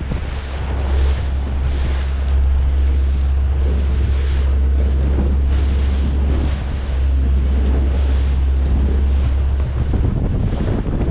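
Wind buffeting the microphone in a deep, steady rumble over the wash of the sea around a small boat. The rumble eases near the end.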